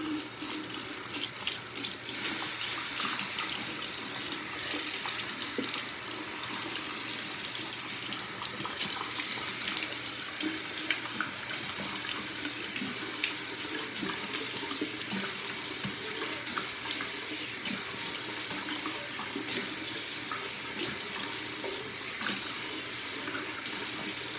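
Water running steadily from a tap into a sink while a face is rinsed off, with irregular splashing throughout.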